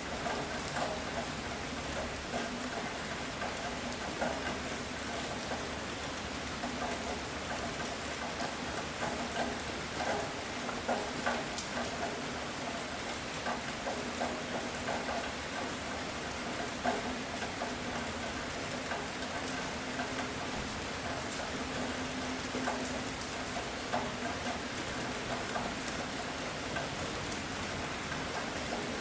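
Heavy rain falling steadily, with the ticks of individual drops striking a surface.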